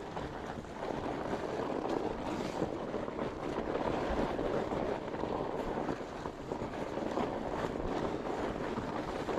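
Rocky Mountain fat bike riding along a dirt trail: a steady rolling rush of the wide tyres with faint ticks and rattles.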